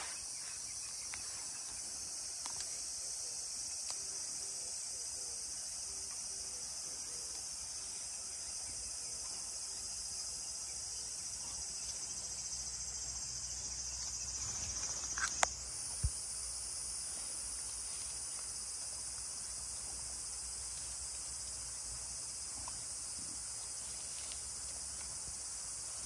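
Steady high-pitched insect chorus from the grass, with two brief knocks just past halfway.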